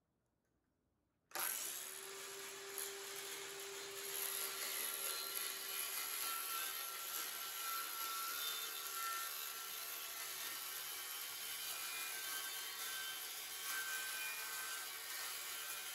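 DeWalt 6½-inch circular saw starting about a second in and then running steadily as it cuts a trimming pass through 1/8-inch hardboard.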